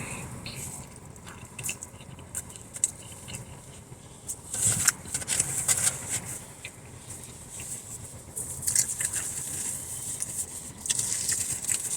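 Chewing a shrimp-and-bacon burger close to the microphone: irregular wet mouth clicks and smacks, busiest about five seconds in and again near the end.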